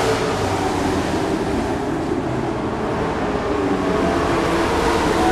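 Several dirt-track racing trucks' engines running hard together: a steady, loud drone of overlapping engine notes that shift in pitch as the trucks go around.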